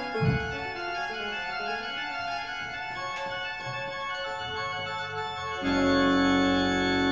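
Background music of sustained organ chords. A louder, fuller chord with deep bass comes in about five and a half seconds in.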